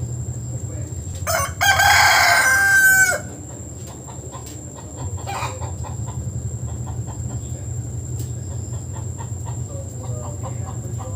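A rooster crows once, about a second in, for roughly two seconds, its held note ending in a downward slide. Soft clucks follow near the end.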